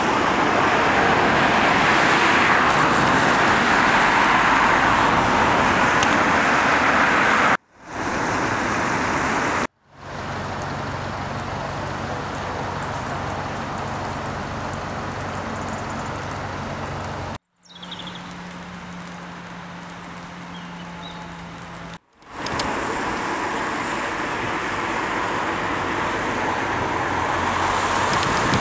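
Outdoor ambience beside a river in flood, in several shots cut together: a steady rushing noise of fast-flowing floodwater mixed with road traffic. Some shots carry a low, steady engine hum underneath. Each cut brings a brief drop-out.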